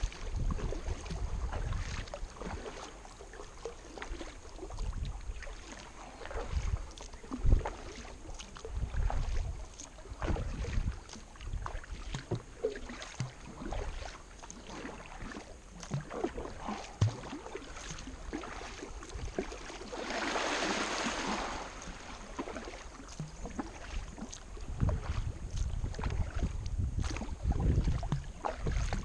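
Kayak being paddled: irregular splashes and knocks of the paddle in the water, with a longer rush of water about two-thirds through and wind rumbling on the microphone near the start and end.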